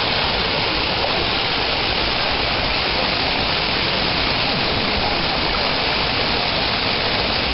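Waterfall: water falling and rushing, a loud, steady roar of noise.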